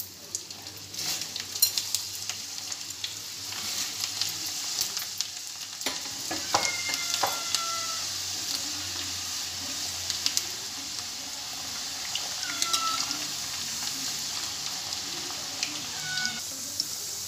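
Whole green mung beans deep-frying in hot oil in a kadai, a steady high sizzle. Scattered clicks and a few short squeaks come from a ladle stirring the beans against the pan.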